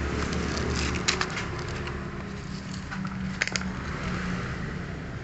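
Honda Karisma 125 cc single-cylinder four-stroke motorcycle engine running steadily, with a few sharp clicks about a second in and again past the middle.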